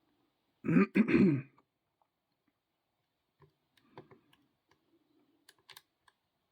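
A man clears his throat once, loudly, about half a second in. After that come faint scattered clicks and light scraping of a lock pick working the pins of a Master Lock 130 padlock.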